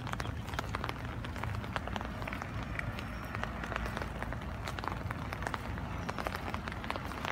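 Rain falling on plants: a dense, irregular patter of sharp drop ticks over a low steady rumble.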